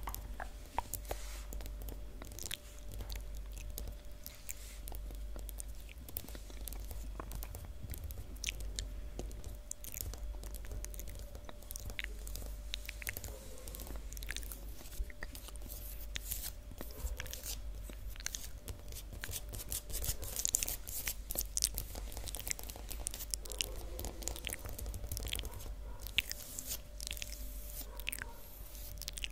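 Long fingernails tapping on a hard floor in quick, irregular clicks, mixed with close wet mouth sounds.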